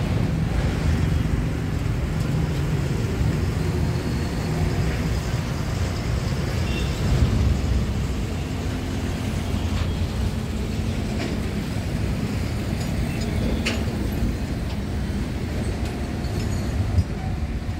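Steady low rumble of road traffic and vehicle engines, with a few faint clicks.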